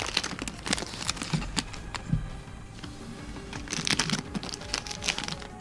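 Crinkling and crackling of a foil booster-pack wrapper and trading cards being handled, in two bursts of short crackles with a lull between them.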